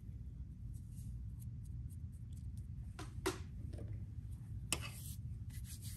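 Faint clicks and taps of small objects being handled over a low, steady room hum, with a pair of sharper clicks about three seconds in and a louder one near five seconds.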